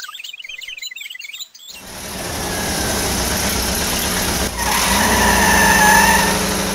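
Birds chirping, then a vehicle engine sound effect swells in about a second and a half in, with a low rumble and a high whine near its loudest point about six seconds in, beginning to fade near the end.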